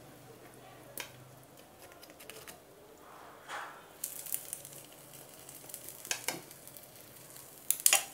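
A fork and a spatula spreading tomato sauce over a pizza base in a nonstick frying pan: soft scraping with a few light clicks against the pan, the loudest clicks near the end. A faint sizzle comes from the pan.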